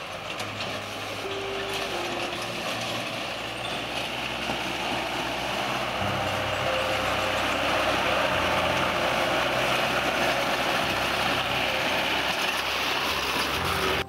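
Small light truck driving toward the listener on a dirt road, its engine and the crunch of its tyres getting steadily louder as it approaches.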